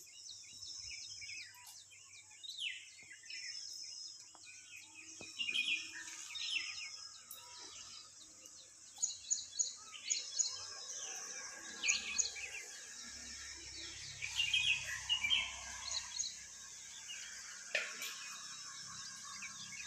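Small birds chirping and calling in quick, repeated bursts over a steady high-pitched hiss, busiest in the second half.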